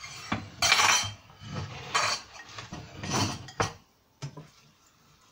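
Metal spoon scraping and clinking in a saucepan as cooked rice is scooped out, in several short bursts, with one sharp clink about three and a half seconds in.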